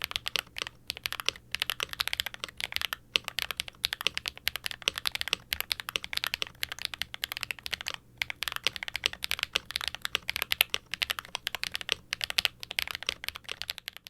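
Fast, continuous typing on a Novelkeys NK87 aluminum mechanical keyboard with a carbon fiber plate, factory-lubed HMX tactile switches and ABS keycaps, the case and plate dampened with silicone and foam. Keystrokes come in rapid runs with brief pauses about three and eight seconds in.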